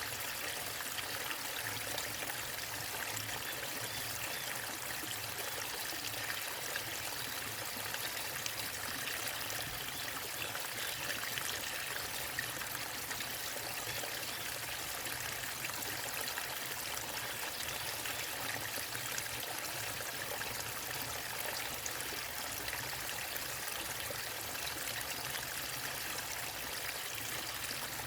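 Waterfall and stream water running steadily: an even rush with a fine trickling, splashing texture.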